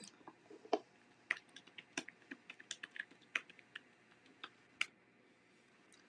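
Typing on a computer keyboard: an irregular run of key clicks that stops about a second before the end.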